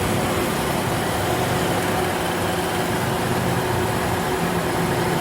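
Steady running noise of an idling car with its air conditioning on and the just-repaired auxiliary condenser fan working, with a faint steady hum under it.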